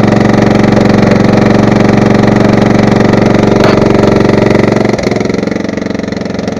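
Small 9 hp engine running steadily, just restarted after being pulled out of a pond and pumped of water. About five seconds in it drops to a lower, quieter running speed.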